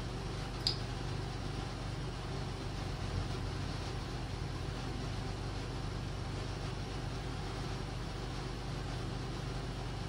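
Steady low background hum with a single short click just under a second in.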